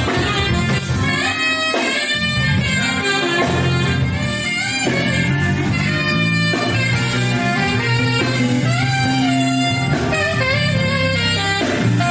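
Jazz with a saxophone playing the melody over bass and drums.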